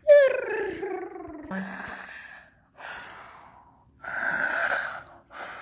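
A child's voice in a long falling moan, then several breathy puffs of pretend snoring, the loudest about four seconds in.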